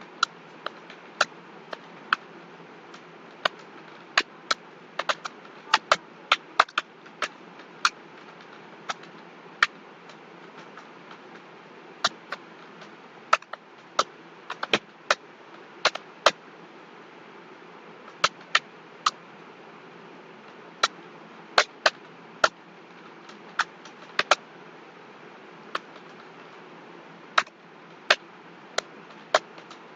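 Computer keyboard keys clicking at an irregular pace, one to a few sharp clicks a second with short pauses, over a steady background hiss.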